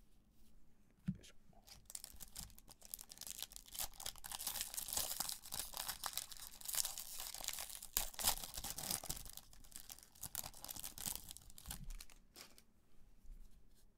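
Plastic wrapper of a 2020 Bowman Draft baseball card pack being torn open and crumpled by hand. A single click comes about a second in, then several seconds of dense crinkling and crackling that fades out near the end.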